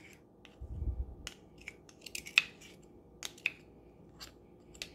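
Spoons clicking and scraping as thick gochujang paste is scraped off a measuring spoon into a bowl of sauce: a scattered string of light clicks, with a soft bump about a second in.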